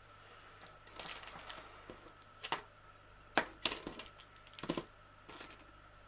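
Small hard accessories from a crochet kit clicking and rattling as they are picked up and moved about on a tabletop, with a run of sharp clicks from about a second in until near the end, the loudest a little past the middle.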